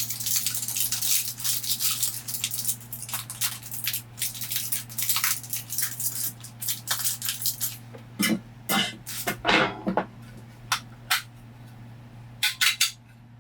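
Close handling sounds: a dense run of sharp crackles and clicks, then after about 8 seconds a few separate clicks and rustles, over a steady low hum.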